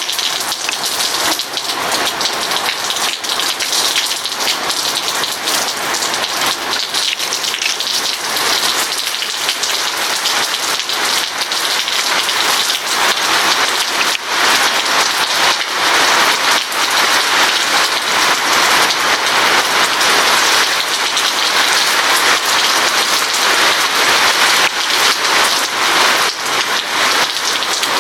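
Steady monsoon rain falling on surfaces: a dense, even hiss of drops with a constant patter of individual drop ticks, growing a little heavier in the second half.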